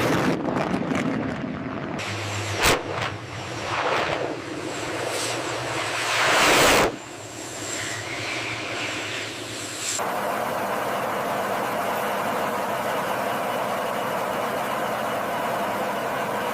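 Jet aircraft engine noise in several abruptly cut segments: swelling passes and a sharp click in the first seven seconds, then a steady, even engine noise from about ten seconds in.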